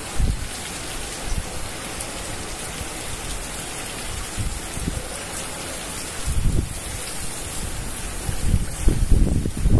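Heavy hurricane rain pouring steadily, with gusts of wind buffeting the microphone about six and a half seconds in and again near the end.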